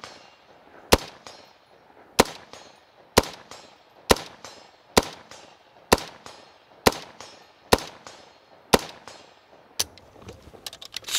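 Semi-automatic 7.62x39 AR-15 rifle firing about nine single shots, roughly one a second, each a sharp crack with a short ringing tail, then a few quieter metallic clicks near the end. The rifle cycles every round from an old slab-side AK magazine without a stoppage, which the shooter calls good function.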